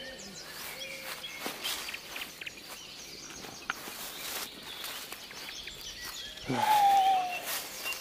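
Footsteps crunching and rustling through dry fallen leaves on a forest path. About six and a half seconds in, a single drawn-out call, about a second long and falling slightly in pitch, is the loudest sound.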